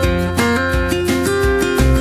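Background music: a plucked guitar melody over a steady bass line.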